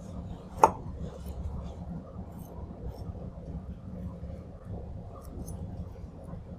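Quiet knife work on a raw chicken leg on a plastic cutting board: one sharp clack of the knife against the board a little over half a second in, then faint scattered ticks over a low steady hum.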